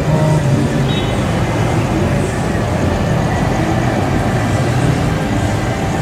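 Steady running noise of a moving road vehicle heard from inside: a low engine hum over road rumble.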